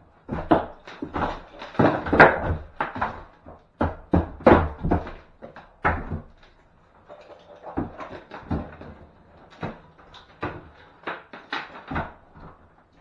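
Irregular knocks, cracks and scrapes of wall being stripped out by hand around a window reveal, with a short lull about six seconds in before lighter knocking resumes.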